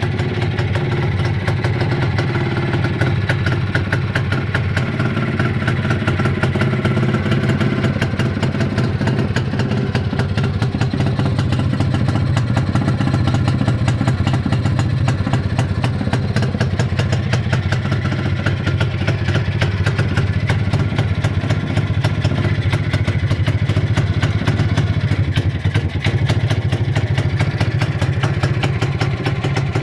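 1966 Jawa motorcycle's two-stroke engine idling steadily with a fast, even beat.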